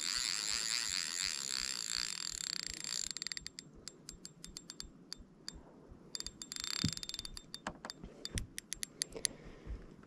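Fishing reel drag giving line to a hooked carp that is running: a steady high buzz for about three seconds, then breaking into quick, irregular clicking for most of the rest.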